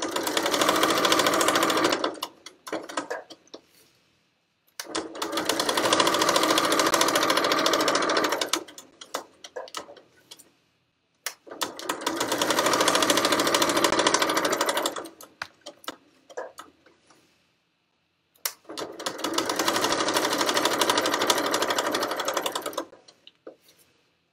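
Janome electric sewing machine stitching in four runs of about two to four seconds each, speeding up and slowing at the start and end of each run, with short pauses and small clicks in between.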